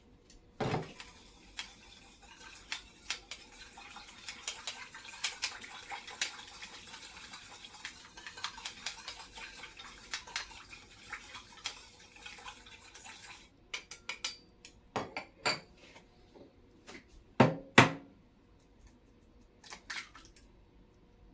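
Kitchen utensils and dishes clinking: a knock, then a long run of rapid clicking and scraping that stops about thirteen seconds in, followed by a few separate clinks and two sharp knocks close together near the end.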